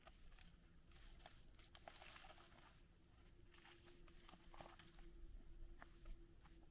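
Near silence with faint, scattered crackling and rustling, of footsteps pushing through dry scrub and leaf litter.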